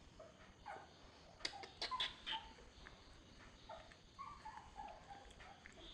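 Spitz puppy whimpering in short high whines that fall in pitch, with a few sharp clicks of handling about a second and a half in.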